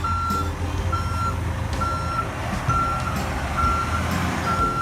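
Truck reversing alarm beeping steadily, one short high beep about once a second, over a low engine rumble.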